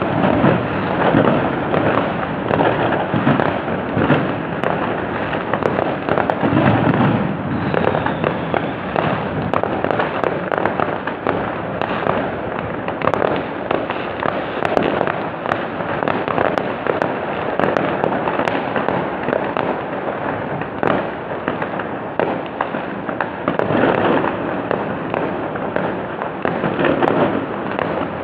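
Fireworks going off in a dense, continuous barrage of overlapping bangs and crackles, swelling louder a few times, as picked up by an old phone's microphone with no treble above about 5 kHz.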